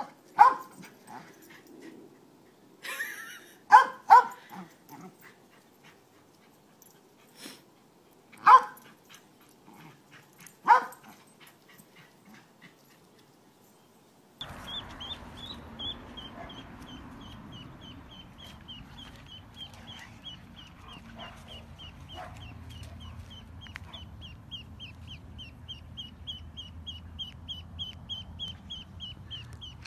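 A dog barking in short, sharp barks a few seconds apart through the first half. Then a duckling peeping: a steady run of high peeps, about three a second, over a low background hiss.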